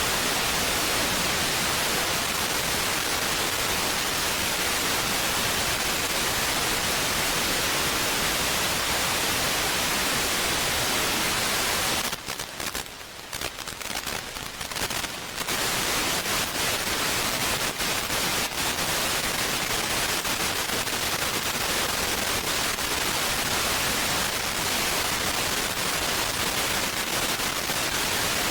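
Steady static hiss, as from an analog FPV video receiver's audio channel. It drops out sharply for about three seconds partway through, then returns.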